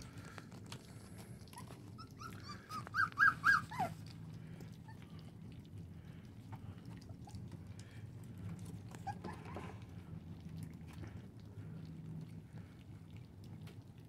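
Four-week-old American bully puppies whimpering while they feed: a quick run of four short high whines about three seconds in, the last one sliding down, and a fainter whine around nine seconds. Soft wet smacking and lapping as the litter eats mush from a shared pan.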